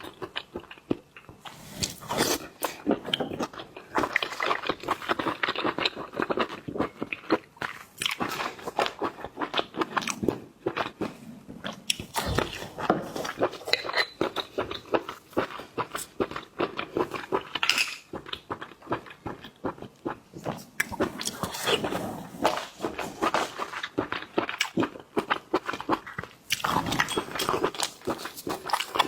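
Close-up eating of seafood: biting and chewing with many irregular crunches and wet clicks.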